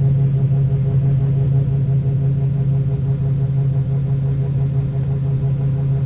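John Deere combine running steadily as heard inside its cab, a constant low engine hum with the machinery drone of unloading soybeans through the auger.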